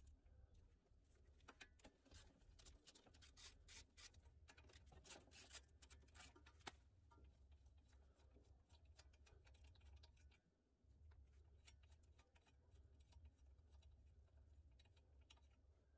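Faint scratching and clicking of loosened nuts being spun off the lower ball joint studs by a gloved hand, most of it in the first half.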